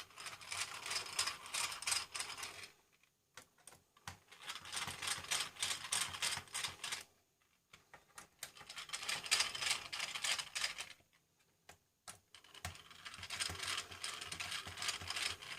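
Screwdriver backing out the four corner screws that hold a hard drive: four bursts of rapid clicking, each a few seconds long, with short pauses between.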